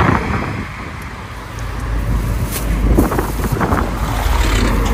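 Road traffic passing by, a low rumble that swells about a second and a half in and holds. A plastic carrier bag crinkles a few times as it is handled.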